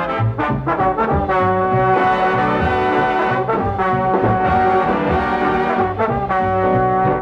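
Dance orchestra's brass section, trombones and trumpets, playing held chords in short phrases over a steady bass line, from an old 78 rpm record.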